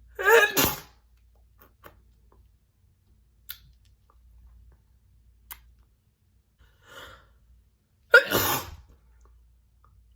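A woman sneezing loudly twice, about eight seconds apart: wet, spitty spray sneezes. Faint breaths and small mouth sounds come between them.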